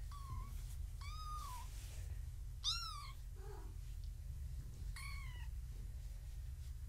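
Three-week-old kitten mewing four times in thin, high cries that rise and fall, the third the loudest.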